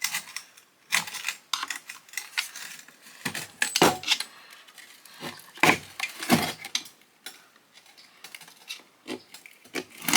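Irregular metal clinks, knocks and scrapes as hand tools work at a garbage disposal's metal parts to pry a piece loose.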